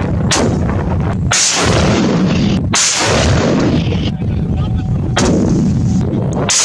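Mortars firing: about five heavy blasts in quick succession, each trailing off in a long echo.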